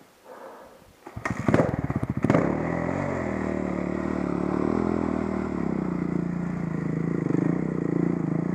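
Off-road motorcycle engine close by starting up about a second in: a burst of loud, uneven firing, then settling into a steady idle.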